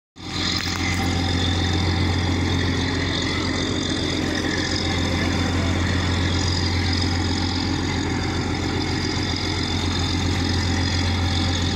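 Boat engine running steadily at sea, a low even drone that holds its pitch throughout.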